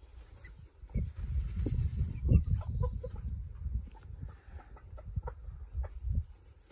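Chickens clucking softly as they forage, with a few short calls in the middle, over a low rumble that starts about a second in.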